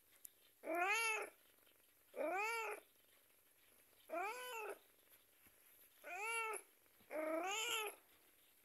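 Grey Persian cat meowing five times, about every one and a half to two seconds, each a drawn-out meow that rises and falls in pitch: the complaining meows of a cat in a bad mood.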